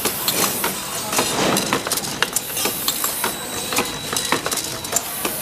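Automated production machine working steel drawer slide rails: rapid, irregular metallic clanks and clicks from its pneumatic tooling and the rails, over a faint steady high whine.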